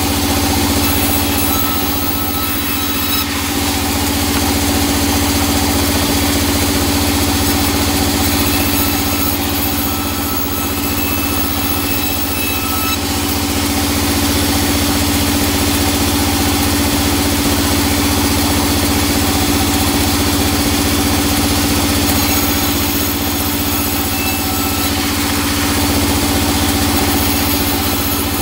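Large sawmill band saw running steadily, its motor and blade giving a constant hum with a steady tone, the loudness swelling slightly as teak boards are fed through the blade. The blade is cutting hard teak and feels blunt.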